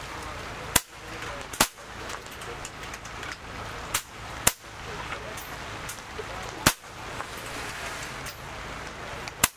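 Pre-charged pneumatic (PCP) air rifles firing along a benchrest line: six sharp shots at uneven intervals and of differing loudness, two of them close together near the start, over a steady background noise.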